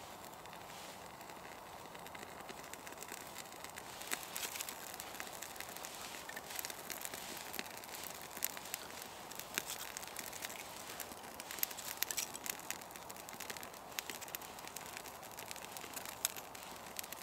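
Small tinder fire of birch bark and resinous fatwood shavings catching and burning, crackling with frequent sharp snaps and pops from about four seconds in.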